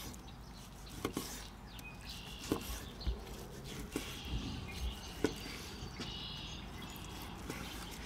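A long slicing knife cutting slices off a seared tri-tip steak, each stroke ending in a soft knock of the blade on a wooden cutting board, roughly once a second.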